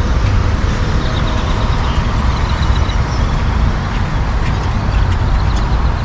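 A large flock of birds calling in a dense, steady din over a low steady rumble.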